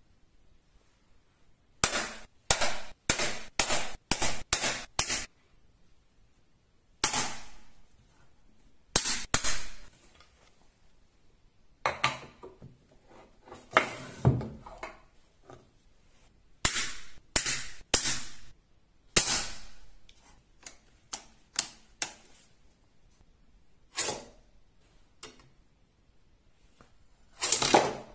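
Sharp metallic clacks in scattered bursts: neodymium magnets snapping together and steel balls striking the magnets of a magnetic accelerator. A quick run of about seven clacks comes a couple of seconds in, with single clacks and short clusters after it.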